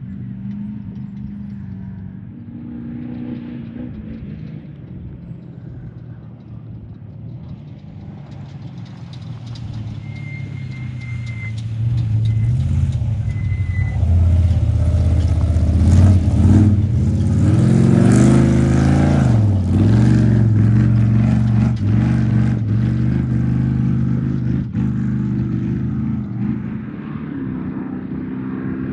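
A trophy truck's race engine approaching and passing at high revs, its pitch swinging up and down as the throttle comes on and off, loudest about halfway through and then dropping away.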